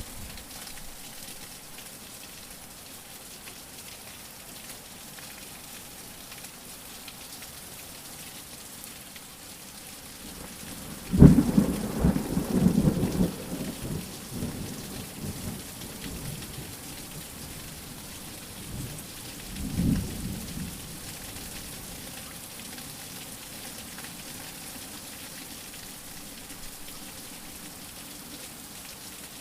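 Steady rain with thunder: a sudden loud crack rolling into a low rumble for about three seconds, and a weaker rumble some eight seconds later.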